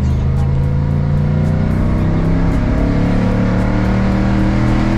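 Ford Raptor pickup's engine running under load as the truck accelerates, its pitch climbing slowly and steadily.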